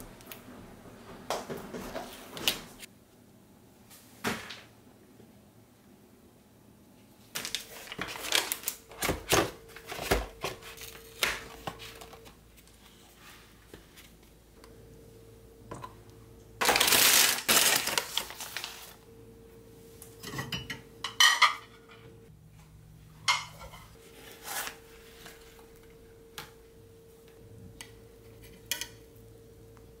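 Close tabletop handling sounds: clicks and taps of a plastic compact, a loud noisy stretch of about two seconds midway, then sharp clinks of ceramic plates and a metal spatula. A faint steady hum runs beneath the second half.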